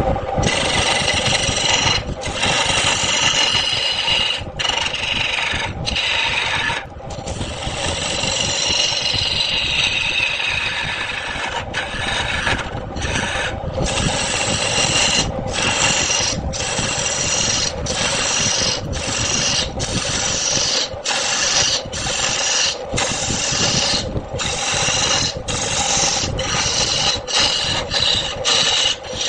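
Wood lathe running while a turning tool scrapes and cuts the spinning wood: a continuous rasping with a steady hum and a high ringing squeal. It is broken by many short gaps, which come more often toward the end.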